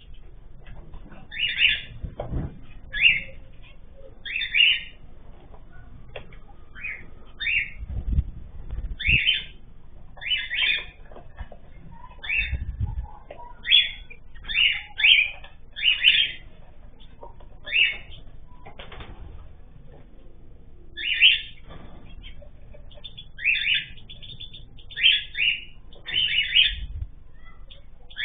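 Small cage birds giving short, repeated chirping calls, one or two a second in irregular clusters, with a few low thumps among them.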